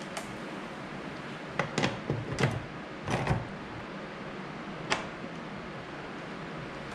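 Handling noise as small parts and wires are worked by hand: a few scattered clicks and scrapes, bunched together about two seconds in, over a steady hiss.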